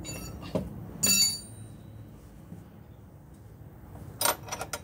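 A steel wrench clinking against metal while the alternator's mounting bolt is loosened to free the fan belt. There are a few light clicks at the start, one loud ringing clink about a second in, and a quick run of clinks near the end.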